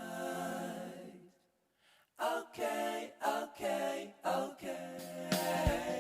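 Background song: a singing voice with little or no accompaniment, breaking off for about a second near the middle and then going on in short phrases.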